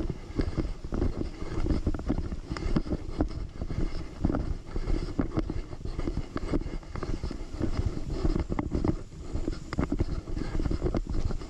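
Wind buffeting the microphone of a GoPro action camera carried by a walking hiker, a steady rumble. Irregular footsteps and knocks on a dirt trail sound through it.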